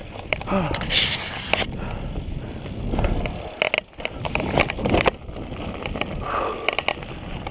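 Orbea mountain bike descending a rough dirt trail and rolling onto gravel: tyres rumbling and crunching over dirt and stones, with sharp knocks and rattles from the bike as it hits bumps.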